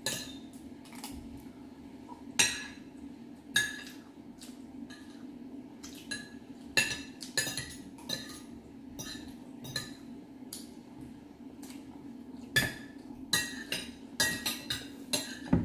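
Metal forks and spoons clinking and tapping irregularly against ceramic plates while people eat, a few clinks louder than the rest, over a steady low hum.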